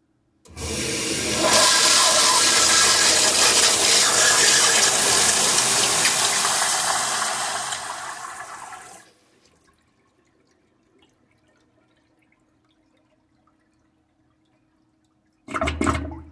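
Wall-hung toilet flushing: a sudden loud rush of water about half a second in, steady for several seconds, then tapering off and ending around nine seconds in. A short knock near the end.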